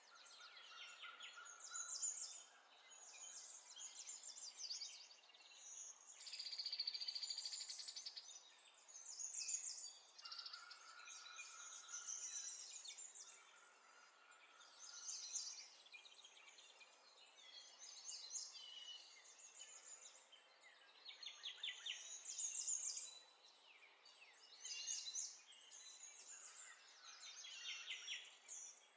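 Faint birdsong: repeated chirps and rapid trills from more than one bird, with a few short steady whistled notes.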